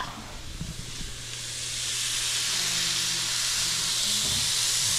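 Raw steak sizzling on the hot plate of a round electric indoor grill, just after it was laid on. It makes a steady hiss that swells over the first couple of seconds.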